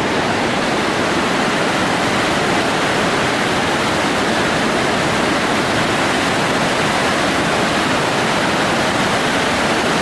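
Large river waterfall and the rapids below it, a loud, steady rush of falling and churning water.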